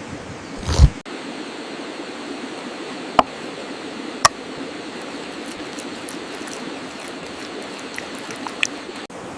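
Steady sizzling of pork neck cooking, with a few sharp pops and taps. There is a loud knock just under a second in.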